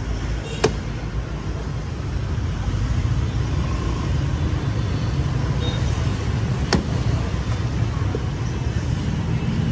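Steady street traffic rumble, with two sharp chops of a machete into a young green coconut, about half a second in and again near seven seconds.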